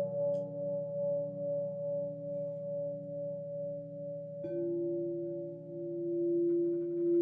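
Singing bowls ringing with a slow, pulsing waver. A second bowl is struck about four and a half seconds in and rings on with a lower tone.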